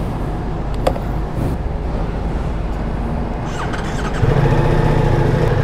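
Petrol-station background noise, then about four seconds in the Ducati Multistrada V4S's 1158 cc V4 engine starts and settles into a steady idle.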